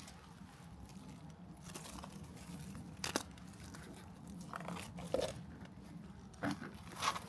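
Slow, careful footsteps crunching over ground debris, with a few short sharp cracks and snaps among them, over a low steady hum.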